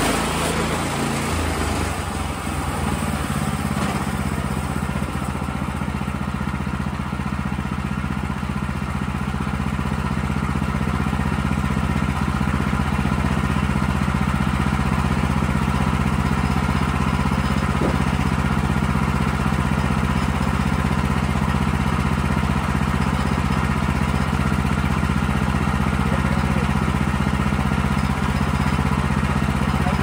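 Gas engine of a Woodland Mills HM130MAX bandsaw mill running steadily as the blade saws through a cottonwood log, with a change in the engine note about a second in.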